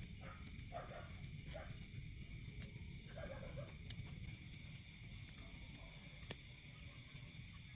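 Forest ambience: a steady high-pitched insect drone, with a string of short animal calls repeating about once or twice a second in the first half that then die away.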